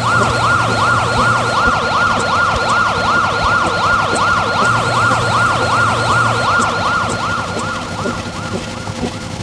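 Siren sound effect in a fast yelp, its pitch sweeping up and down about three times a second. It starts abruptly and fades near the end.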